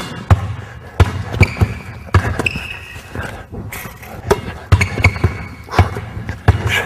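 A basketball is dribbled hard on a hardwood gym floor, making sharp, uneven bounces about two a second. Short high sneaker squeaks come in between.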